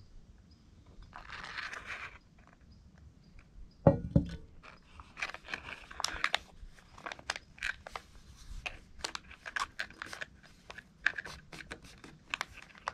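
Hot water poured from a cooking pot into a paper food pouch, a hollow knock about four seconds in as the pot is set down on the wooden table, then paper and plastic packaging crinkling with many small crackles and clicks.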